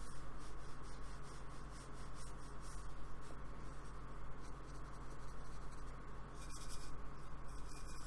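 Paintbrush dabbing and scrubbing acrylic paint onto black card, a quick run of short scratchy strokes that grows denser near the end.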